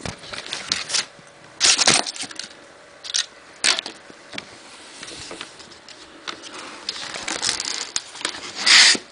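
Cardboard box and foam packing rustling and scraping as an airsoft rifle is handled and lifted out of them, with a few short knocks scattered through and a longer, louder rustle near the end.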